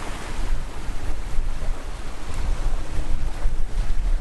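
Wind buffeting the microphone in a heavy, uneven low rumble, over the steady rush of water along a sailboat's hull as she sails fast in about 20 knots of wind.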